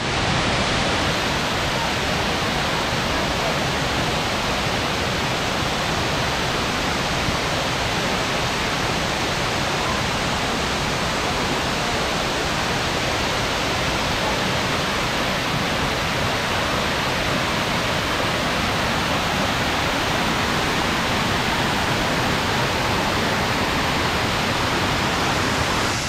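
Steady, unbroken rush of falling water from several waterfall streams pouring down a rock wall.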